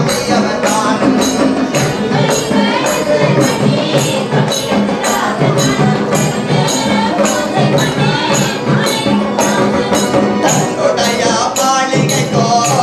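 Tamil koothu folk-drama music: a voice singing over a steady percussion beat of about two strokes a second.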